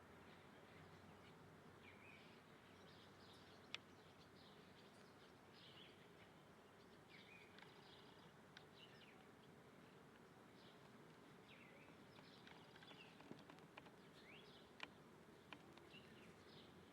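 Faint, frequent short bird chirps and calls over a low steady background hiss, with a couple of sharp clicks.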